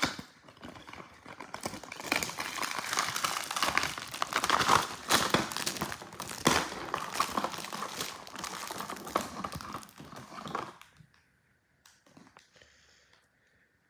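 Packaging being unwrapped by hand: continuous irregular crinkling and crackling with sharp tearing snaps, stopping about eleven seconds in and leaving only faint soft rustles.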